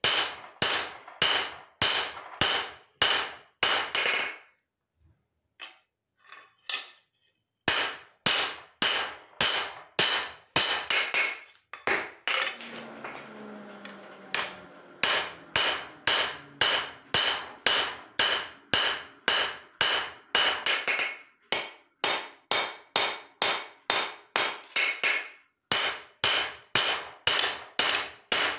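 Hand hammer striking hot leaf-spring steel on an anvil in a steady rhythm of about two ringing blows a second, stopping briefly for a few seconds early on. Partway through, a low droning noise sounds for a few seconds under the blows.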